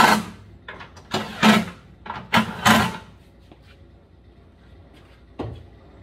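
A cordless driver runs in three short bursts, each about half a second, driving in the screws that hold the mower's top engine cover. A single knock comes near the end.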